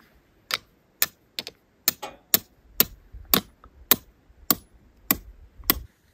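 Hammering: about eleven sharp blows in a steady rhythm, roughly two a second.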